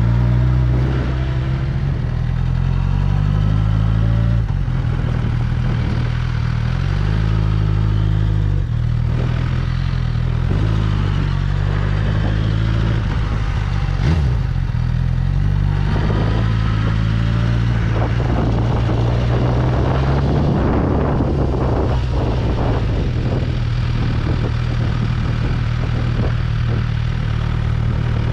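Suzuki GSX-R1000 K7 inline-four engine running under way, its note shifting in pitch in steps several times as throttle and gears change.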